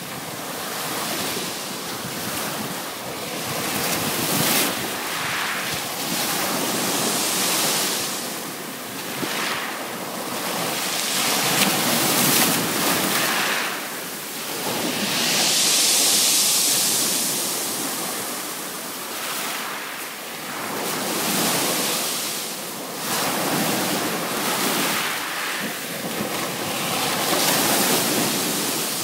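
Small sea waves washing up over a fine pebble shore and drawing back, a fizzing hiss of foam over shingle that swells and fades every few seconds. The brightest, loudest wash comes a little past halfway.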